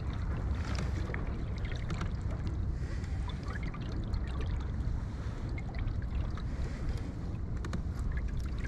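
Water lapping against a kayak hull under a steady low wind rumble on the microphone, with scattered light ticks and small splashes. Near the end a hooked fish splashes at the surface beside the kayak.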